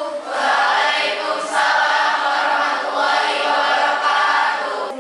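A class of schoolchildren calling out a greeting to their teacher in unison, in long drawn-out chanted syllables.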